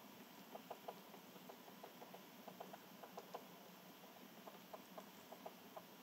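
Faint, irregular light clicks and taps, a few a second at times, over quiet outdoor background noise.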